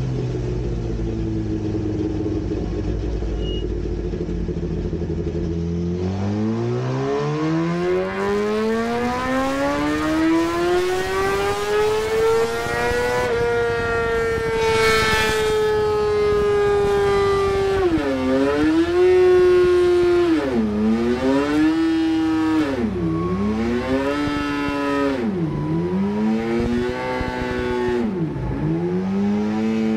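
Suzuki GSX-R1000 inline-four superbike engine on a dyno, running through a full Yoshimura titanium exhaust. It runs low for about six seconds, then makes a full-throttle pull with the pitch rising smoothly for about seven seconds up toward the top of the rev range. The revs then ease off and drop in five sharp dips, each recovering a little lower than the last.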